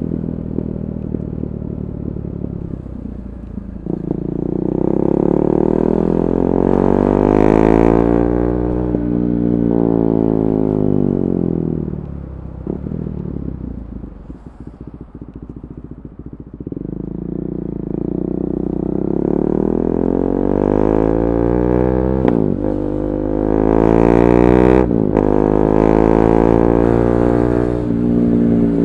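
KTM 390 Duke's single-cylinder engine through an Akrapovic Moto2 slip-on exhaust with the catalytic converter removed, revving up and easing back down twice, with a quieter low-rev spell in between. A couple of short sharp cracks come late on.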